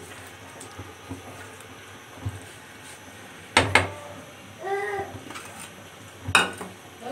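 Sharp clatters of cookware: two close together about three and a half seconds in and another near the end. Between them comes a short, high-pitched call.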